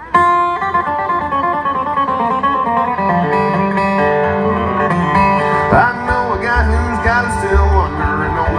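A bluegrass string band of guitar, banjo, fiddle and upright bass playing the instrumental opening of a song, starting sharply. Sliding, wavering melody notes come in at about six seconds, and low bass notes join shortly after.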